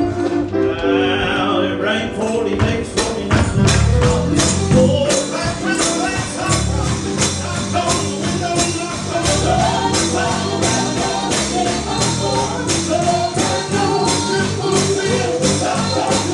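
Gospel music with singing and a tambourine keeping a steady beat.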